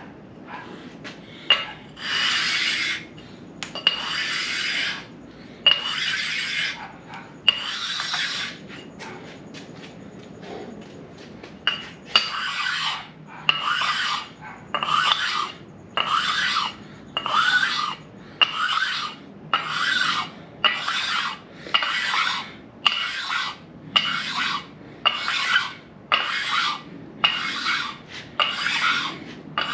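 Sharpening stone rasping back and forth across the deck surface of a 6.0 LS engine block, dressing it to an even surface finish. A few slow strokes, a pause of a few seconds, then steady strokes at about one a second.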